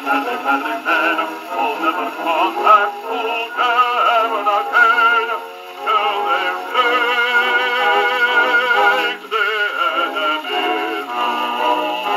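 A bass-baritone man singing with orchestral accompaniment, played from a 1920s 78 rpm shellac record on a wind-up acoustic gramophone. The sound is thin, with no deep bass, as acoustic playback gives.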